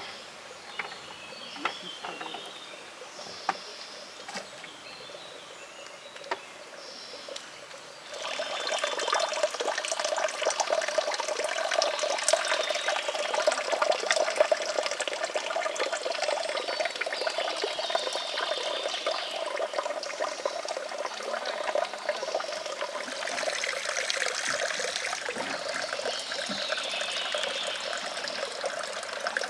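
Spring water running out of a pipe spout and splashing onto the ground. It is faint with a few sharp clicks for the first several seconds, then much louder and steady from about eight seconds in.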